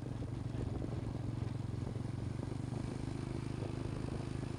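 Small motorcycle engine running steadily while riding along at low speed.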